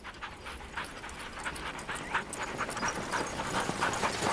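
Sled huskies panting: a fast, irregular run of short breaths from the dog team, growing a little louder toward the end.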